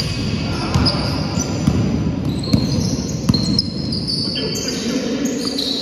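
Basketball game on an indoor court: the ball bouncing, players' footsteps, and trainers squeaking on the floor, with short knocks and squeaks throughout.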